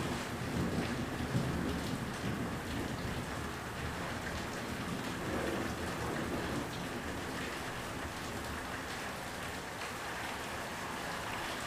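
Heavy rain falling steadily during a thunderstorm, with a low rumble of thunder in the first few seconds.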